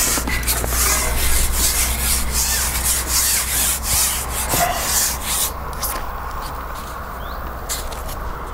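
Carbon fishing pole sliding back over its roller and through the hands in a series of rasping rubs, as it is shipped back to land a hooked small roach. The rubbing stops about five and a half seconds in.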